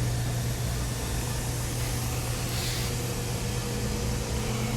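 2008 BMW 335xi's twin-turbo inline-six idling steadily, a low even hum.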